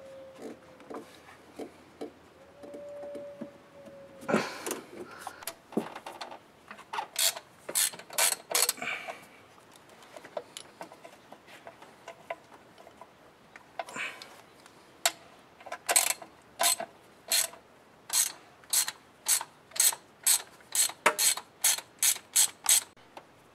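Socket ratchet clicking as it is worked back and forth on a spark plug. Bursts of clicks come in the first part, then a run of short strokes, about two to three clicks a second, that get quicker near the end.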